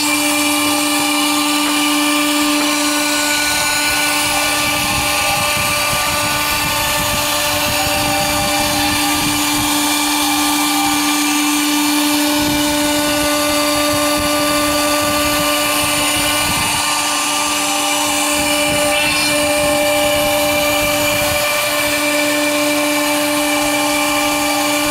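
CNC router spindle running at a steady high whine while the bit cuts wood, with a rough, uneven cutting noise under the tone.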